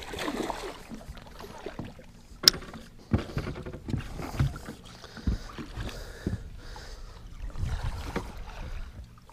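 Knocks and thumps against a fishing boat's hull and deck, with water sloshing, as a hooked musky thrashes at boatside and is fought toward a landing net. One sharp click about two and a half seconds in is the loudest sound.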